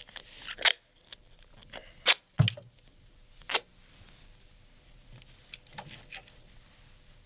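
Tambourine being handled while its jingle nails are taped: a few separate sharp clicks and metal jingle clinks, with a small cluster of jangles after about five seconds.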